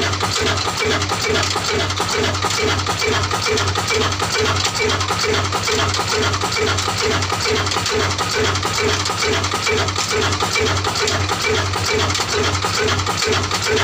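Old horizontal single-cylinder diesel engine of the Ruston type running steadily, with an even, rhythmic beat of its firing strokes.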